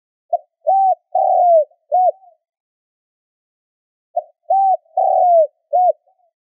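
Spotted dove cooing: two phrases about four seconds apart, each of four low notes, the third long and falling, the last short and arched.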